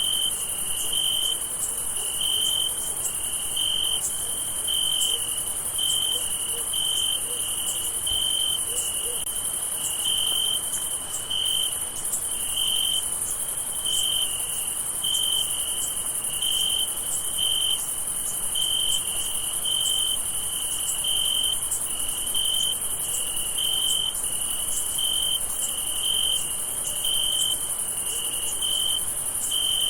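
Crickets chirping: one regular chirp repeating a little more than once a second over a steady, high-pitched trill.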